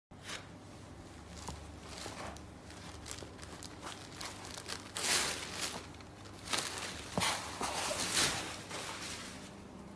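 Rustling of a saree's cloth as it is unfolded and handled, in irregular bursts, loudest about halfway through and again a couple of seconds later.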